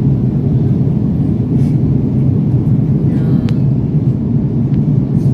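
Jet airliner cabin noise during the climb: the engines and the rushing air heard from a window seat as a loud, steady low rumble.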